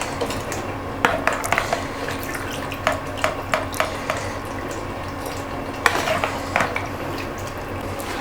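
Fried paneer cubes being tipped into a pan of gravy and stirred, with scattered clinks and knocks of a spoon against the pan and a few bunched near the start, middle and end. A steady low hum sits underneath.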